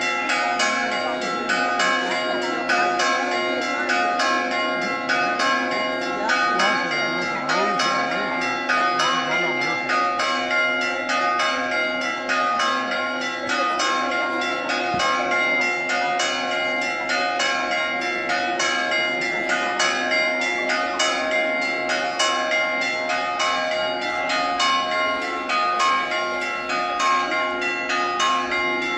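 Greek Orthodox church bells ringing continuously, a rapid, unbroken pattern of overlapping strokes, with faint crowd voices beneath.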